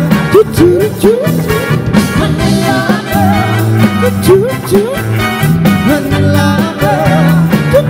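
Live band playing an upbeat song: a steady beat and bass under a melody whose notes slide up in pitch.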